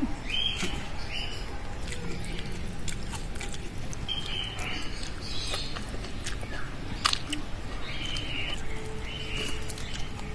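Birds calling in short, high notes that come in small groups every second or so, with scattered sharp clicks of eating from steel plates, one louder click about seven seconds in.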